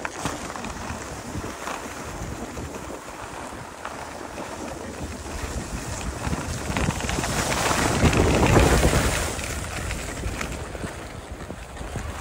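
Wind rushing over the microphone and skis scraping on snow during a downhill ski run, with no tones, swelling to its loudest about eight to nine seconds in before easing off.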